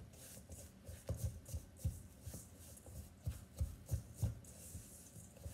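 Silicone spatula mashing and scraping solid coconut oil into packed brown sugar in a dish: repeated soft thuds and scrapes, about two a second.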